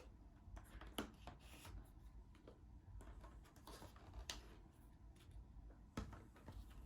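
Quiet handling of Pokémon trading cards: soft rubbing and sliding of the cards with a few sharp little clicks and taps, the clearest about one second in, about four seconds in and about six seconds in.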